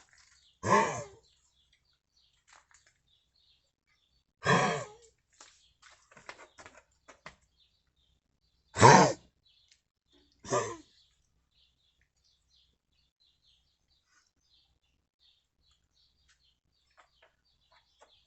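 A nine-year-old Central Asian Shepherd Dog (alabai) coughing: four short harsh coughs, about a second in, at about four and a half seconds, at about nine seconds and once more just after ten seconds. It is a persistent cough that comes with vomiting and that vets have not been able to explain.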